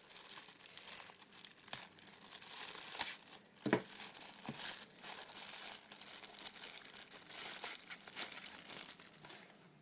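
Plastic sealing wrap on a Zippo lighter box crinkling and tearing as it is cut and pulled off, with a few sharper snaps partway through.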